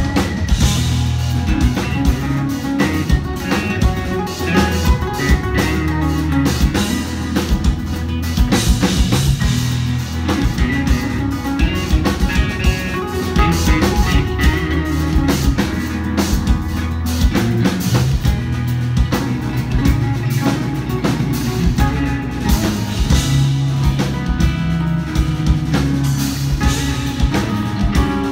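Live instrumental progressive metal band playing: two eight-string electric guitars over a drum kit with dense, rapid drum hits and a heavy low end, heard through the venue's PA.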